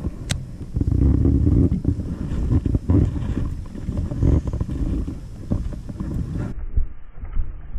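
Wind buffeting the camera microphone: an uneven low rumble that surges in gusts, with one sharp click near the start.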